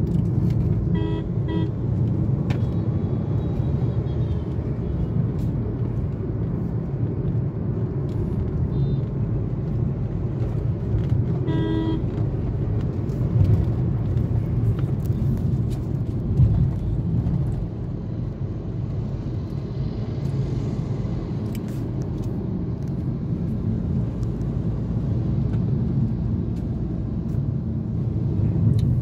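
Steady engine and road rumble of a moving car heard from inside its cabin. A short horn beep sounds about a second in and another about twelve seconds in.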